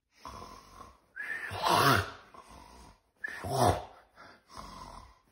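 Someone snoring in bed: two loud, drawn-out snores about two seconds apart, then a fainter breath near the end.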